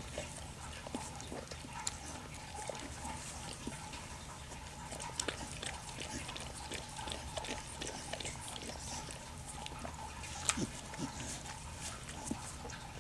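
Pit bull mother licking and chewing at her newborn puppy and its umbilical cord: quiet, wet smacking and clicking over a low steady hum.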